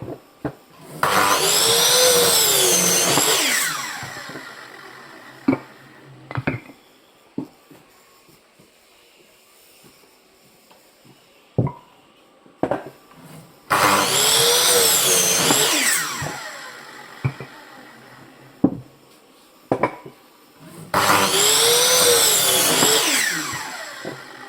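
Electric saw cutting through firewood three times, each cut about two and a half seconds, the motor's whine rising and sagging as the blade bites. Sharp knocks of wood being handled and dropped come between the cuts.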